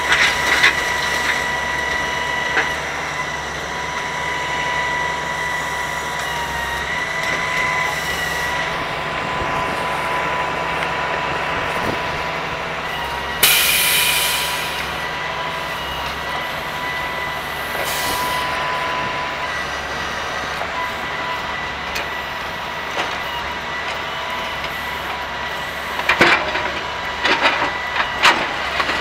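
Grapple truck running: a steady engine drone with a high, even whine over it. Two short loud air hisses about halfway through, a few seconds apart, and a run of sharp knocks and clatters near the end.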